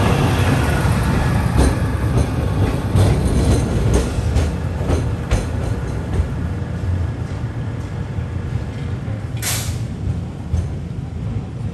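Vintage wooden electric tram of the Sóller tramway rolling past at close range and away: a low rumble with scattered clicks and knocks from the running gear, fading as it recedes. A short hiss about nine and a half seconds in.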